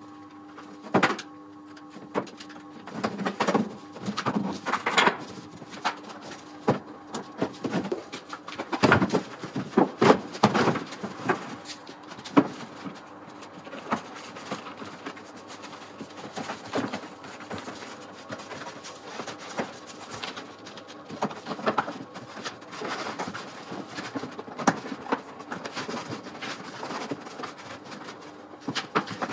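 Irregular knocks, clicks and rustling of a Tesla Model S's plastic trim panels and front-trunk tub being handled and pressed back into place, loudest around nine to thirteen seconds in.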